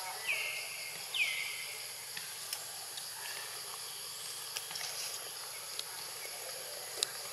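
Two high-pitched monkey cries about a second apart near the start, each a short squeal falling in pitch. Behind them is a steady high insect drone.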